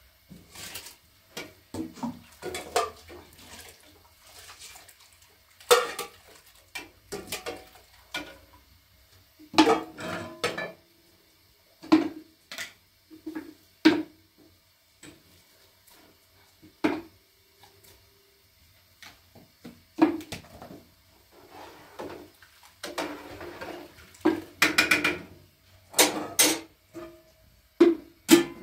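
Aluminium pots, lids and cups clanking and clinking as they are handled and set down: a string of separate knocks, each with a short metallic ring.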